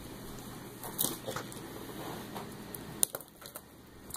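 Light knocks and rustles as a kitten bats and grabs a pencil on a wooden tabletop and a fabric bag, with a couple of sharper taps about a second in and near the three-second mark.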